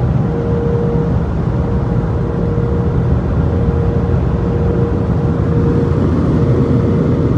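Car wash dryer blowers running, heard from inside the car: a loud, steady rush of air with a faint whine that comes and goes.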